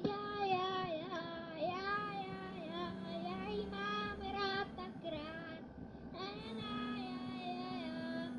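A high, child-like voice singing a melody over a held accompanying note, as in a song.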